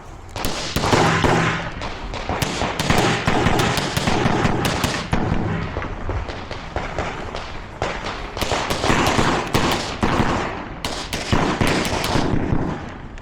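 CZ Shadow 2 9mm pistol fired rapidly, strings of shots broken by short pauses while the shooter moves.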